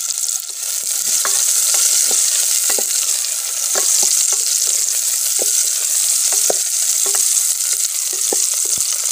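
Sliced onion, garlic, ginger and green chillies sizzling in hot ghee in an aluminium saucepan, stirred with a wooden spoon. The spoon knocks against the pan every second or so.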